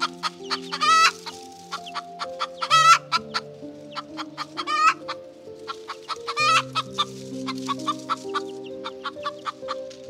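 Hen clucking in short repeated notes, with four louder, longer calls, over soft background music with slow held notes.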